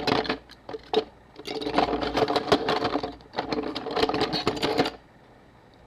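Rapid clicking and scraping of a small metal pick working against the parts of a Canon AE-1's mirror box, trying to seat the mirror return spring on its pivot. It comes in two quick rattling runs, each about a second and a half long, and stops about five seconds in.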